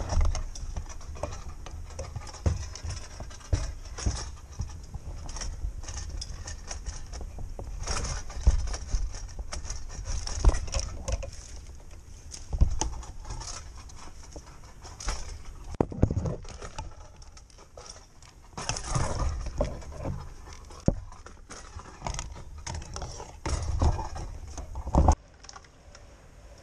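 Irregular knocks, clicks and clinks of a tree climber's ropes, carabiners and pole tool being handled, over a steady low rumble of wind on the microphone. The sharpest knocks come a few seconds apart, with a loud one near the end.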